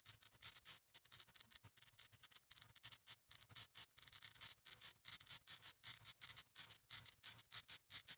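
Drawing tool scratching on paper: quick, faint back-and-forth strokes, several a second, like shading in a drawing.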